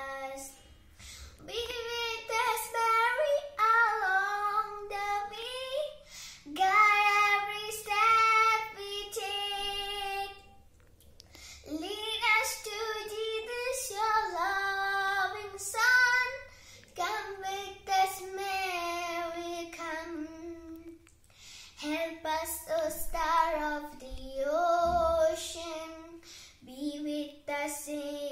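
A young girl singing a Mother Mary hymn solo, with no accompaniment, in long sung phrases broken by short pauses for breath.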